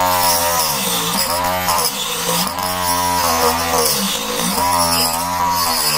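Small 12 V 555 DC motor in a homemade rotary tool, spinning a thin cutting disc that is cutting into a plastic pipe. The motor's whine drops in pitch each time the disc bites under load, then climbs back, over and over.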